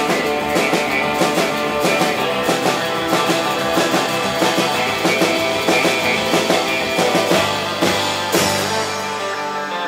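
Live instrumental rautalanka guitar rock: an electric guitar plays the melody over a steady drum-kit beat. A cymbal crash comes near the end, and the drumming thins out after it.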